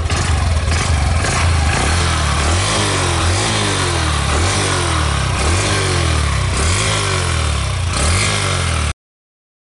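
Honda Livo's 110 cc single-cylinder engine running at the exhaust, with repeated short throttle blips, each a brief rise in pitch, about once a second. The exhaust note is one the owner calls very silent. The sound cuts off suddenly near the end.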